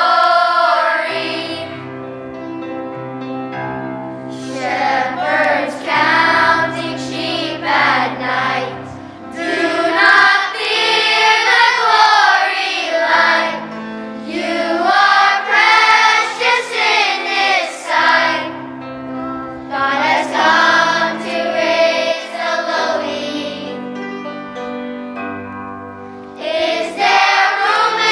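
Children's choir singing a song in phrases with short breaks, over steady held notes of an instrumental accompaniment.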